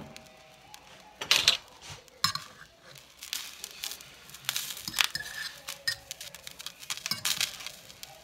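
Irregular clinks, taps and rustles of a frying pan and seasoning being handled, a handful of short knocks scattered through, the loudest about a second and a half in.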